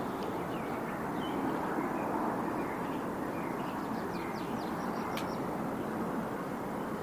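Steady rushing outdoor noise with short high bird calls scattered through it, busiest about four to five seconds in.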